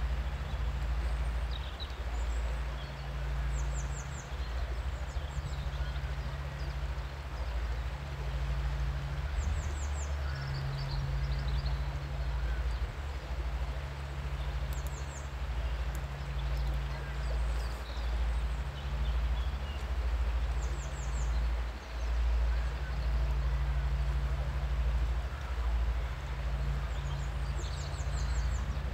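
River flowing over rapids in a steady rush, with wind buffeting the microphone in a low, gusting rumble. Small birds give short high chirps now and then.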